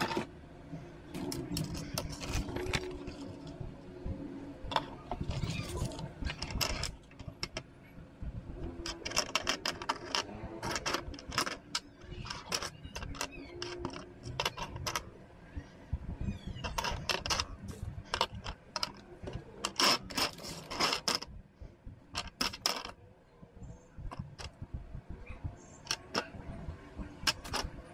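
Small hard plastic parts of a model tank kit clicking and clattering as they are handled, pressed together and set down on a desk, with runs of quick clicks.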